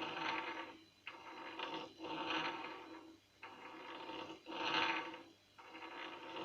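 Jawa 638 crankshaft turned by hand between the pointed centres of a homemade centring jig to check its runout. Its ends rub and scrape on the centres in about six swells, roughly one a second.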